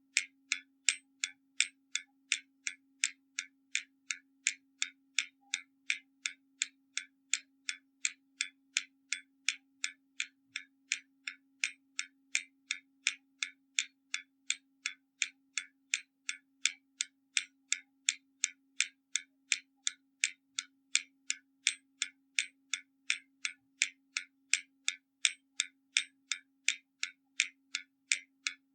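Hermle mechanical skeleton clock ticking steadily, sharp even clicks from its escapement at about two and a half a second, with a faint steady hum underneath.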